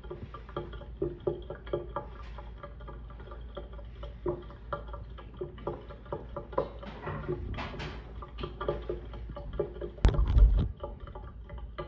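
Small irregular water splashes, drips and gurgles around a sinking 3D-printed model ship, with a louder, deeper bump or rumble near the end.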